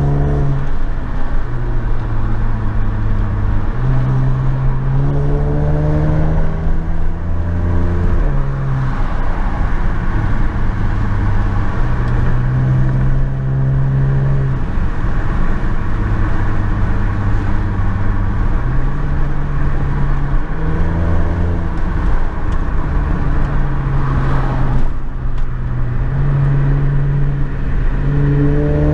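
Hyundai Azera's V6 engine heard from inside the cabin while driving, its pitch rising as the car accelerates and stepping down with each gear change, over steady road noise.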